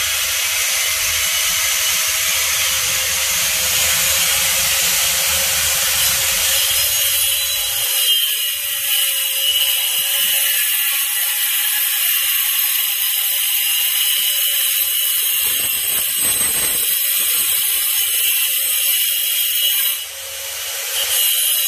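Handheld angle grinder running at speed against the work: a steady high whine with hiss, which sags briefly about 20 seconds in and then picks up again.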